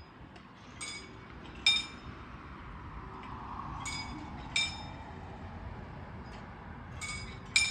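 Sharp metallic clinks, each ringing briefly, in three pairs about a second apart, over a steady low rumble.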